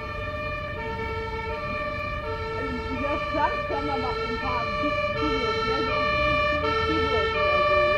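German two-tone emergency-vehicle siren (Martinshorn), switching back and forth between two pitches about every three quarters of a second and growing louder as it approaches, then dropping away near the end.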